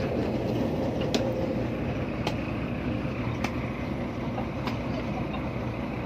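Large diesel farm engine idling steadily nearby, with a sharp tick about every second.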